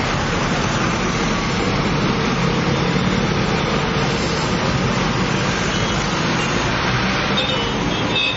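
Steady road traffic noise, the engines and tyres of buses and cars passing on a busy street.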